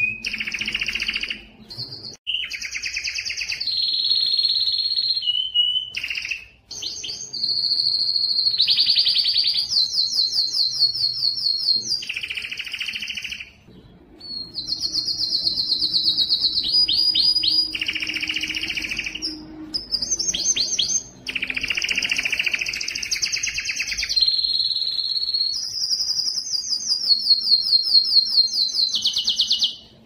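Male domestic canary singing a long, loud song of rapid trills and rolls, switching from one trill to the next every second or two, with a few short breaks. It is the male's courtship song, sung to attract females.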